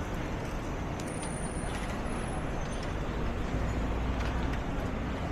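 City street traffic: a motor vehicle's engine rumbles past, loudest three to five seconds in, with a few faint, thin high-pitched tones in the first half.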